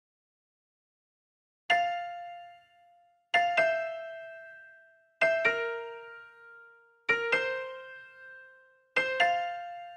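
Background music: piano chords struck one at a time about every two seconds, each ringing out and fading, after a silent first second and a half. No pouring or cooking sound is heard.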